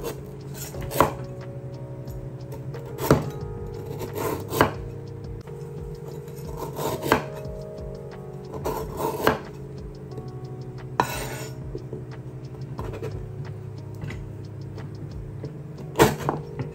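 Large kitchen knife chopping a hard, woody chui jhal stem on a wooden cutting board: irregular knocks every second or two, with some scraping, over steady background music.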